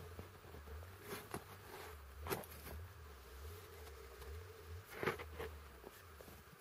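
Faint outdoor ambience: a low wind rumble on the microphone with a faint steady hum and scattered small clicks and knocks, two of them sharper than the rest.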